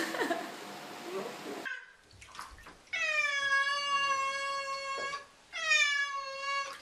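A ginger tabby cat yowling while held in shallow bathwater: two long, drawn-out yowls, the first about three seconds in and lasting about two seconds, the second a shorter one just after it.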